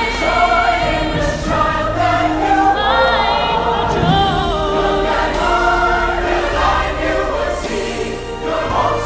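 Choir singing with instrumental backing and a low bass: the fireworks show's soundtrack.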